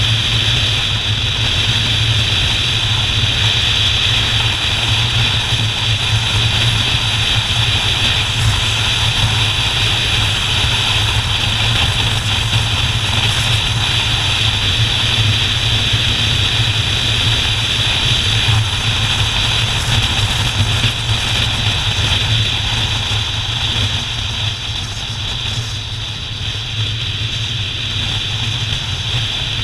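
Motorcycle engine running steadily at cruising speed, with road and wind rush, heard from the bike itself. The sound eases off a little about three-quarters of the way through, then picks up again.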